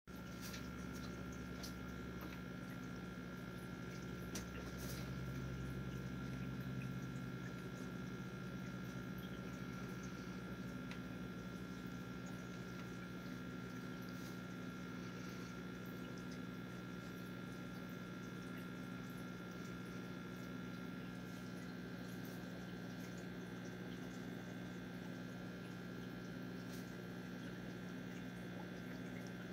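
Aquarium filter pump humming steadily, with a faint high whine above the hum and scattered light ticks.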